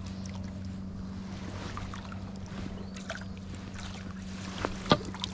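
Landing net dipped into lake water, splashing and dripping, with light knocks of handling and one sharper click near the end, over a steady low hum.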